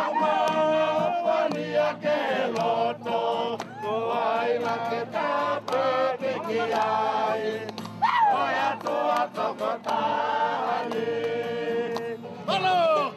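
A group of voices singing a Niuean song together, choir-style.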